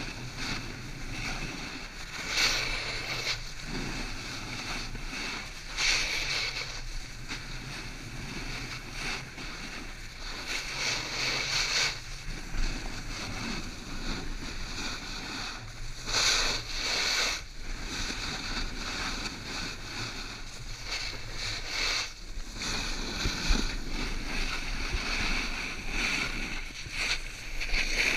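Snowboard edges scraping and hissing on snow while carving down a slope, the hiss surging louder every few seconds as the board turns, with wind on the microphone.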